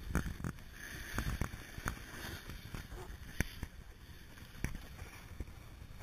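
Skis sliding and scraping over groomed snow on a downhill run, a steady rushing hiss broken by scattered sharp clicks and knocks.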